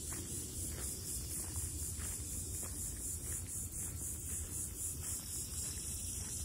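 A chorus of insects shrilling high and pulsing evenly, over a low rumble.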